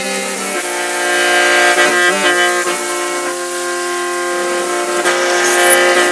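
Hmong qeej (lusheng), a bamboo free-reed mouth organ, playing sustained chords. Several reed tones sound together, and the notes change every second or so.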